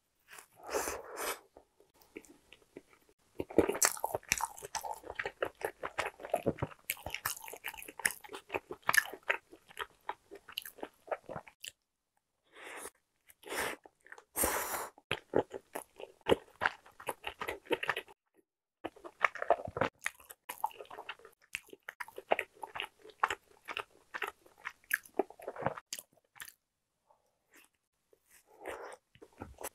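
Biting and chewing of a ketchup-topped sausage hot dog bun, mouth sounds of soft bread and sausage in bursts with brief pauses.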